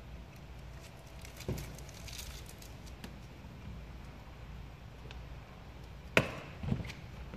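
Faint crinkling of vinyl wrap film being pressed by hand over a car grille, then a sharp click about six seconds in, followed by a softer knock.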